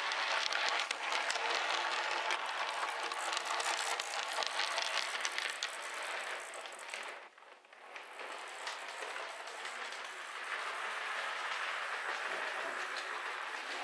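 O scale model tram running along its track: a busy mechanical whir of its small motor and gears mixed with many quick clicks from the wheels on the rails. The sound dips sharply for under a second about seven seconds in, then carries on.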